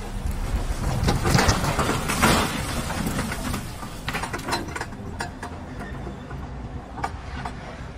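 Excavator engine running with a steady rumble while shed debris of sheet metal and lumber clatters and scrapes down the slope. The clatter is loudest in the first two or three seconds, then thins to scattered knocks and clicks.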